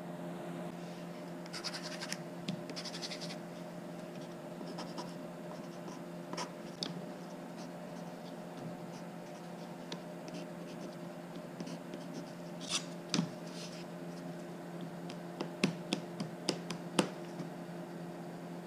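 Pencil scratching as it marks thin wooden parts, with scattered light clicks and taps as the pieces are handled and set down. A faint steady hum runs underneath.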